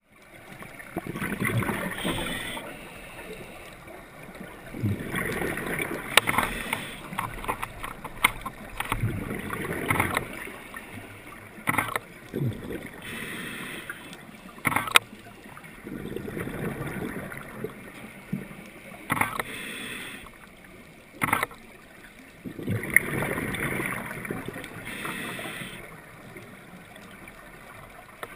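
A scuba diver breathing through a regulator, heard underwater: bursts of exhaled bubbles gurgle every few seconds, with quieter spells between. A few sharp clicks stand out.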